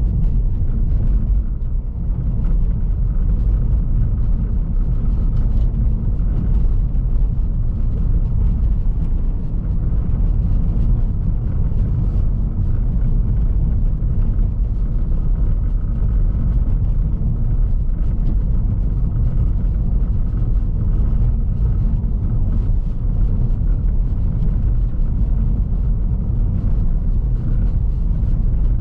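Steady tyre and road rumble heard inside the cabin of a 2010 Toyota Prius III hybrid driving over a bumpy road, with many small knocks and rattles scattered through it.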